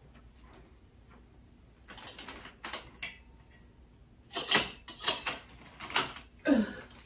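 Metal tubes and fittings of a Better Homes and Gardens folding garment rack clicking and knocking as the frame is handled, a few sharp clacks coming in the second half.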